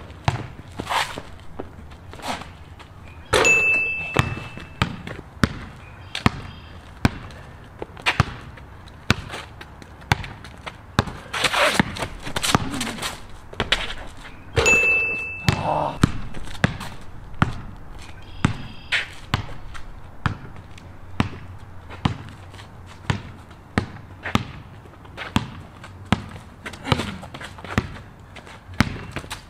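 A basketball dribbled on a concrete court, sharp bounces roughly once a second. Twice, a shot hits the steel rim and it rings briefly.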